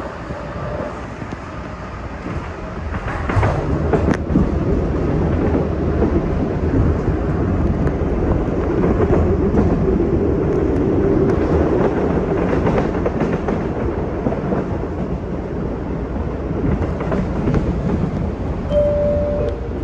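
MBTA Blue Line subway train running on surface track, heard from inside the car: a steady rumble of wheels on rail, with a few sharp clicks about three to four seconds in and a short high tone near the end.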